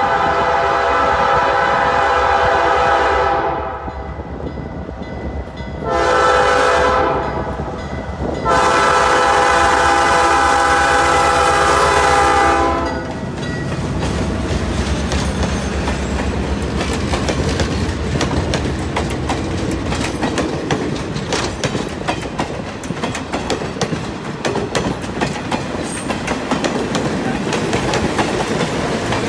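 Diesel locomotive horn blowing for a grade crossing: a long blast, a short one, then a long one. Passenger cars then roll past with their wheels clicking over the rail joints.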